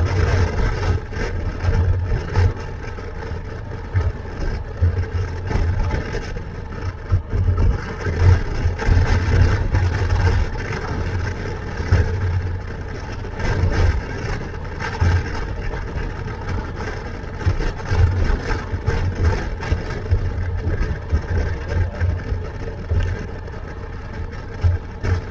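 Motorcycle engine running at road speed under a steady rush of noise, with gusty low rumble from wind buffeting a helmet-mounted microphone.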